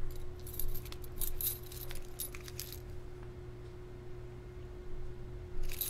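Keys on the ring of a small brass padlock clinking and jingling lightly as the lock is handled, in a flurry of small clinks over the first couple of seconds and a few more near the end. A faint steady hum runs underneath.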